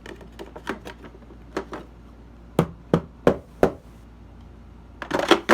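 Plastic shroud from a Bissell CleanView Helix vacuum's cyclone being handled and knocked against a hard surface to shake off dirt: a few light clicks, then four sharp knocks about a third of a second apart, and a short burst of rattling knocks near the end.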